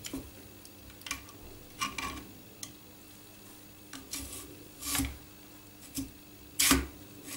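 Plastic carriage being slid and fitted onto steel linear rails: a scattered series of light clicks, knocks and scrapes of plastic on metal, the loudest knock near the end.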